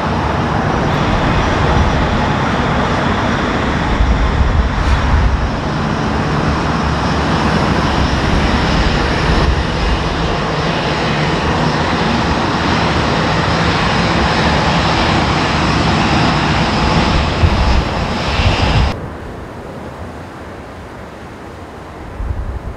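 Boeing 787-9 jet engines running steadily at taxi power close by. About 19 seconds in, the noise drops sharply to a much quieter steady background, and it swells again near the end.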